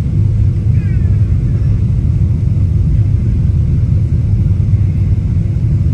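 Boeing 777-300ER airliner, a steady low rumble of engines and airframe with no change in pitch or level.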